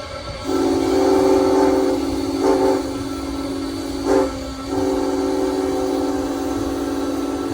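Southern Railway 630's Nathan six-chime steam whistle sounding its chord. It comes in sharply about half a second in, breaks off for a moment about halfway through, then is held again.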